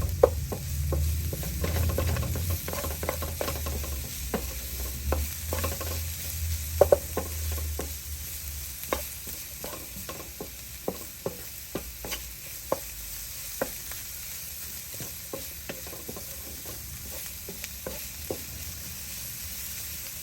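Onion, ginger, garlic and cumin seeds frying in oil in a pot, with a steady sizzle while a spoon stirs, scraping and tapping against the pan in irregular clicks. A low hum sits under the first several seconds, then fades.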